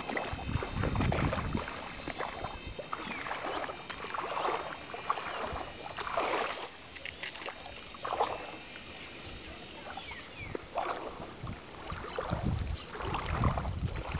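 Sea water surging and washing against shore rocks in irregular waves, with several louder surges and a quieter stretch in the middle.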